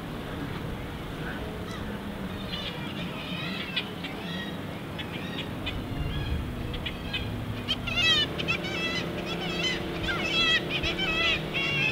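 Kittiwake colony calling: many short, nasal, wavering calls overlapping, busier and louder from about eight seconds in.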